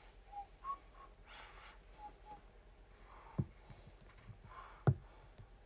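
A few soft, short whistled notes, then two sharp clicks about a second and a half apart as the parts of a small microphone tripod stand are fitted together.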